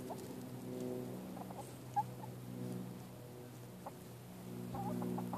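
Hens making low, drawn-out murmuring purrs, broken by a few short higher peeps, the sharpest about two seconds in, with faint light ticks from the birds moving through dry pine straw.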